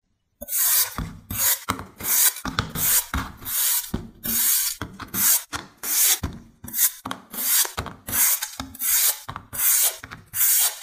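A flat metal blade slicing pieces off a dense foam ball, a run of short crisp scraping cuts at about two a second, starting half a second in.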